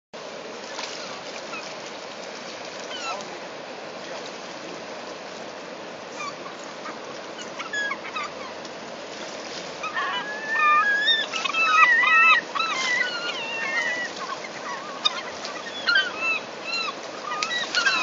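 Gulls calling while squabbling over salmon: scattered short, arched cries at first, then a loud, crowded burst of calls from about halfway through. A steady rushing noise runs underneath.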